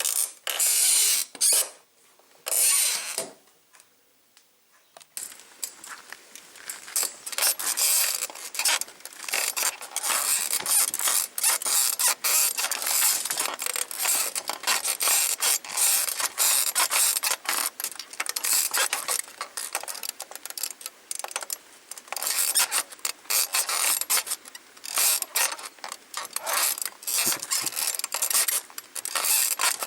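Sprung 1970s bicycle saddle squeaking over and over as someone bounces on it, a rapid run of creaky squeaks from its springs. The squeaking stops for a few seconds early on and then starts again and keeps going.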